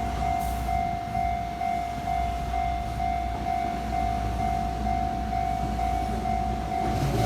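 Japanese level-crossing alarm ringing, a single electronic tone repeating about twice a second, over a low steady rumble.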